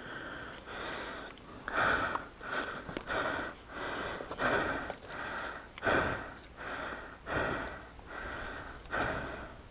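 A person breathing hard close to the microphone, a quick run of noisy inhales and exhales about once or twice a second.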